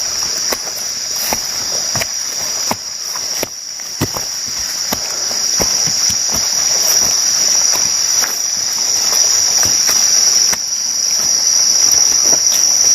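Steady, high-pitched insect chorus that holds unbroken, with scattered irregular clicks and knocks over it.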